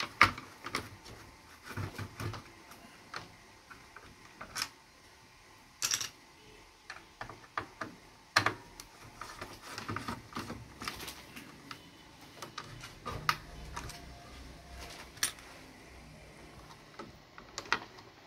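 Irregular clicks and light knocks of a screwdriver and plastic and metal parts as a Sharp radio-cassette player is taken apart to free its circuit board.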